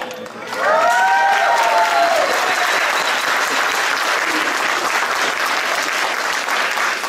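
Audience applauding, with a few whooping cheers in about the first two seconds.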